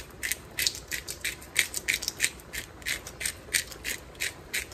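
Hand-turned pepper mill grinding black pepper, a run of short crunching strokes at about three or four a second.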